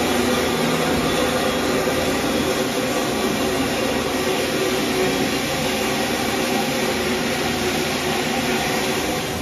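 Water pouring from overhead spouts into a spa pool, a steady rushing splash.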